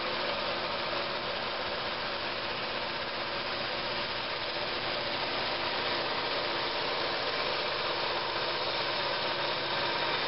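Shop-made drum sander, a sandpaper-covered drum spun by a wood lathe, running steadily while a segmented wooden ring is fed under it and sanded flat.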